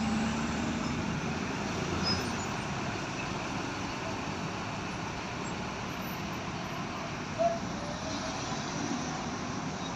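Steady roadside traffic noise of passing vehicles, with one short, sharp sound about seven and a half seconds in.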